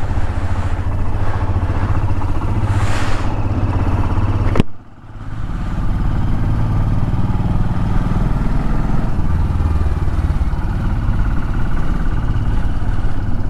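Motorcycle engine running steadily while riding, with wind noise on the microphone. A sharp click comes a little over four seconds in; the sound then dips briefly and builds back up.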